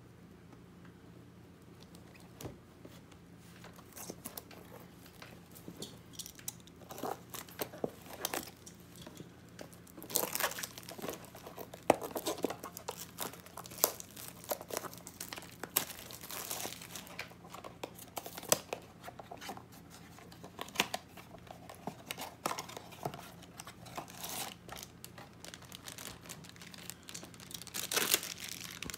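Packaging of a Funko Mystery Mini blind box being crinkled and torn open by hand: irregular crackling and tearing that starts a couple of seconds in, is busiest in the middle, and picks up again near the end.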